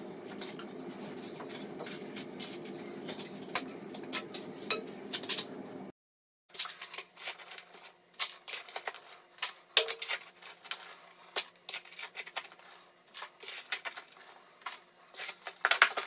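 Small hand digging tool scraping and clinking irregularly against packed dirt, rocks and the broken concrete edge of a hole around a toilet drain pipe. A steady low hum sits under it for the first six seconds and stops abruptly.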